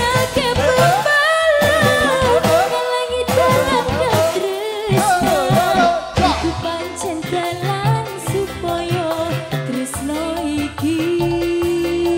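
A female Javanese singer singing a song with a band, her voice winding up and down in ornamented runs. She holds one long steady note near the end.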